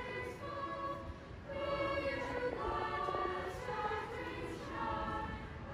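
A choir singing a melody in long held notes.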